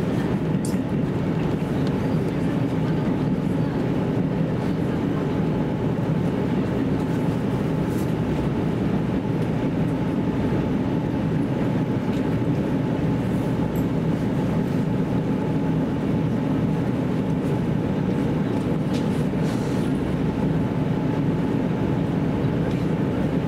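JR Central KiHa 75 diesel railcar heard from inside the carriage: a steady rumble of the diesel engine and running gear, with a faint steady whine.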